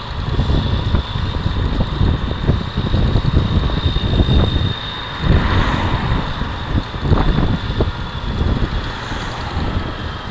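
Wind buffeting the microphone at road speed, in gusty low rumbles over steady engine and road noise, with a faint steady high whine.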